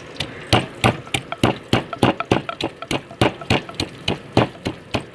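Pestle pounding onions in a mortar: a steady run of sharp knocks, about three a second.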